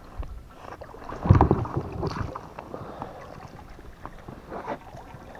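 Water splashing and sloshing beside an inflatable boat as a hooked pike is scooped out with a landing net. The biggest splash comes about a second in, followed by smaller sloshes.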